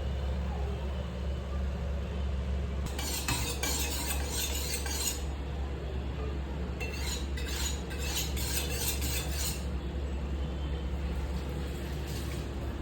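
A metal utensil stirring and scraping food in a pan, with some sizzling. It comes in two spells of two to three seconds each and a brief third near the end, over a steady low hum.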